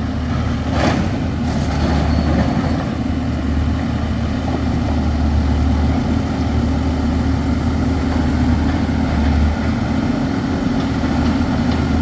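Heavy construction machinery's diesel engine running steadily with a deep hum, and a short hiss-like burst about a second in.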